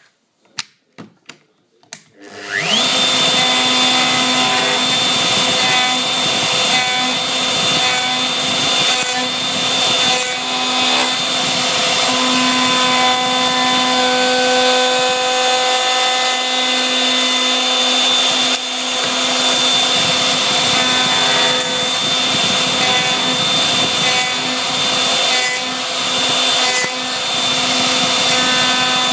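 A few clicks, then a plunge router starts about two seconds in, its whine rising quickly to a steady high pitch. It runs steadily while its bit cuts a pocket into a walnut block.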